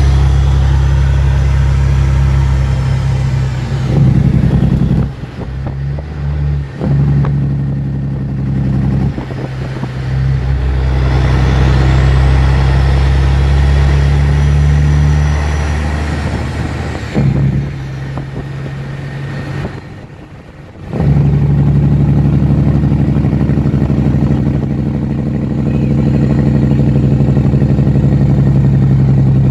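Heavy truck's straight-piped diesel engine on its engine brake, heard from the cab: a loud, steady drone that cuts out briefly several times, as at gear changes, then comes back in.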